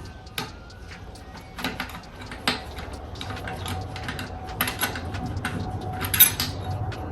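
Scattered clicks and knocks of H22 Prelude gearbox parts being handled during disassembly, the loudest about six seconds in.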